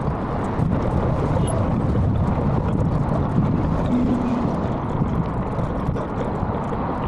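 Wind buffeting the microphone, mixed with motorbike and traffic rumble. The sound is a steady, fluctuating low rumble, and no single engine stands out.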